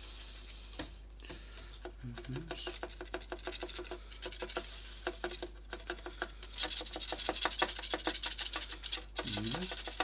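Knife blade scraping old paint off a bakelite radio case in rapid, many-per-second strokes, getting louder about two-thirds of the way through.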